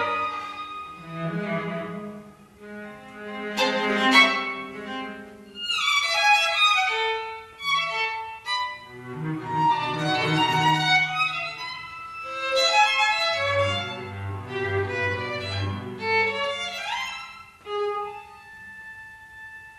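String trio of violin, viola and cello playing contemporary chamber music in short, unconnected fragments. Rising slides come twice, and a repeated low cello note pulses in the middle of the passage. The texture thins to a quiet held high note near the end.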